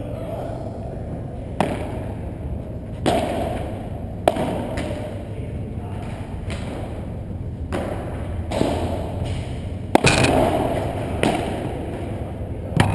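Padel rally: the ball struck by padel rackets and bouncing, a sharp hit about every one to one and a half seconds, each with a short echo in the hall, over a steady low hum.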